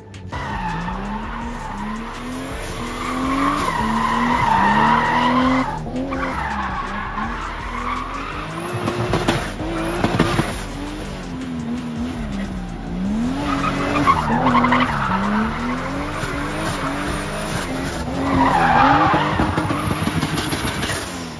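Drift car's engine revving, its pitch rising and falling over and over, while the tyres squeal and skid. The squeal swells loudest a few seconds in, again about fourteen seconds in, and near the end.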